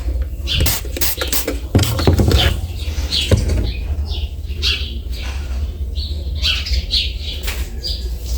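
Background music: an instrumental passage with a steady bass and sharp percussive hits.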